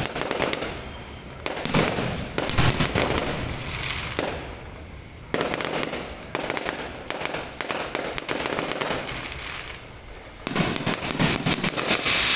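Aerial fireworks bursting overhead: a run of sharp bangs and dense crackling, with fresh volleys starting about a second and a half, five, and ten and a half seconds in.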